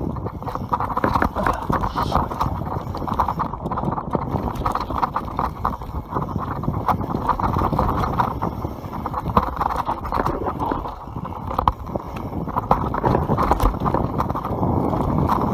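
YT Capra mountain bike rattling down a rough dirt trail: tyres over stones and roots, with chain and frame clattering in dense, irregular knocks.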